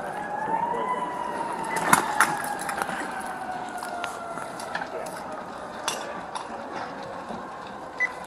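Emergency vehicle siren that rises briefly in pitch, then slowly winds down, falling steadily through the rest of the sound. A few sharp knocks or pops come through, the loudest about two seconds in.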